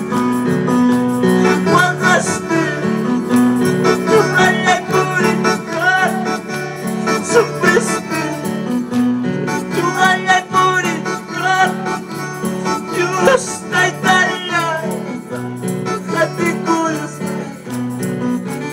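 Amplified live worship music: an electronic keyboard with a bass line stepping between notes, and voices singing over it.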